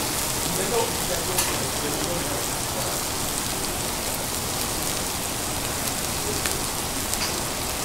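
Steady hiss of food sizzling on a hot teppanyaki griddle, with a few faint clicks.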